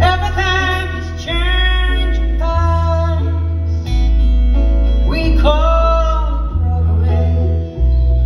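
Live band playing a song: a woman sings the lead over acoustic guitar and upright bass, with bass notes changing about every second. The sound is heard from the audience seats, with the hall's echo.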